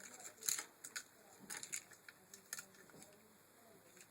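Scattered light clicks and taps of small hard parts being handled during work on a car window regulator. The loudest sharp click comes about half a second in and another about two and a half seconds in, then the clicks thin out near the end.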